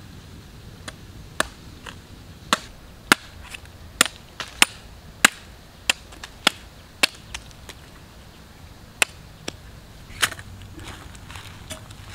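A large curved knife chopping into the tough husk of a hand-held palmyra palm fruit: about twenty sharp chops at an uneven pace, thinning out after about seven seconds.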